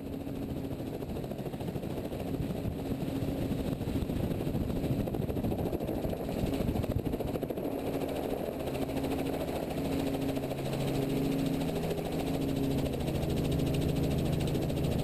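Helicopter's engine and rotor running as it takes off and moves low over the airfield, heard from a camera on the helicopter itself. The sound grows gradually louder, and steady tones come in about halfway through.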